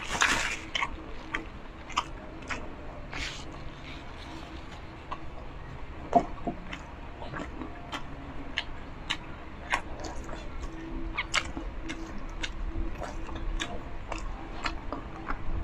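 Close-miked chewing and mouth sounds: scattered wet clicks and smacks of someone eating.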